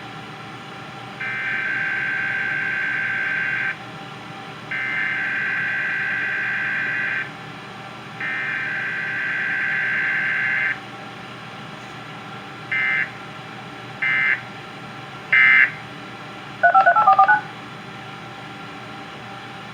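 Emergency Alert System digital data bursts: three long screeching header bursts of about 2.5 s each, then three short end-of-message bursts about a second apart, with no attention tone or voice message between them, as a Required Weekly Test is sent. A quick string of touch-tone (DTMF) beeps follows near the end.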